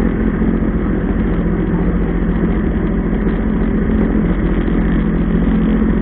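Jet ski engine running steadily, with an even drone and a strong hum low in pitch.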